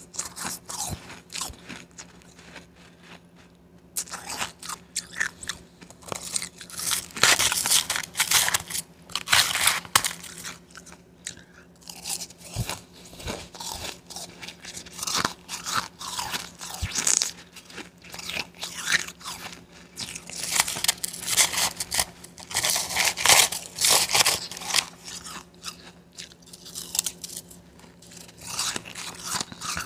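Close-miked crunching and chewing of blended Wawa bagged ice, in repeated bites with a brief quieter pause a few seconds in.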